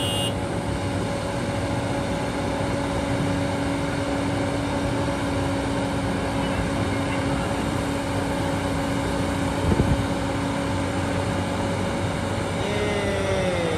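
Heavy diesel engine of mud-bound earthmoving equipment running steadily, with one short knock about ten seconds in.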